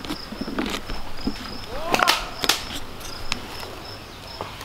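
An insect, cricket- or katydid-like, chirping in a steady, even pulse of high notes, about three a second. Around two to three seconds in come a few sharp clicks and a short gliding sound.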